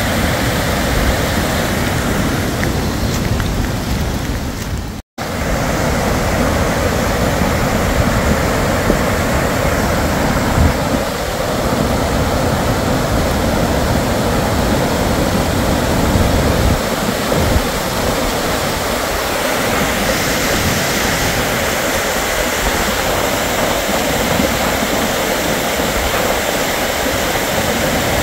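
Fast floodwater rushing over a road, a loud steady rush of water. It breaks off for an instant about five seconds in.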